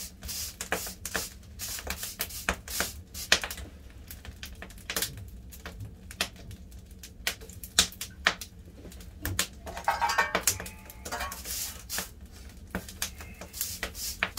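Wood fire crackling, with irregular sharp pops and snaps from the burning firewood.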